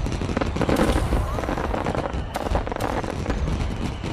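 Aerial fireworks going off in a dense barrage: continuous crackling and popping with a few louder bangs among it.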